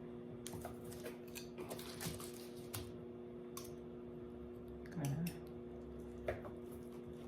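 Light scattered clicks and taps of salad toppings and utensils being handled over a bowl, over a steady low electrical hum.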